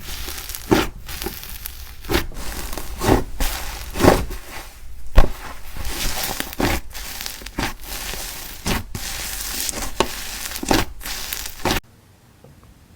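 Slime being squeezed and pressed by hand, a continuous rustling texture with a sharper press or pop roughly once a second. It cuts off abruptly near the end.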